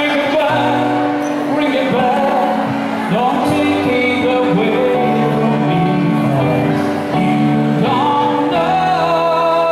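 A man singing into a microphone over amplified backing music with held chords.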